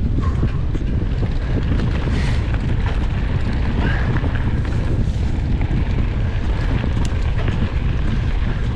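Steady low rumble of wind buffeting the microphone of a camera on a bicycle ridden at speed, with a few faint clicks over it.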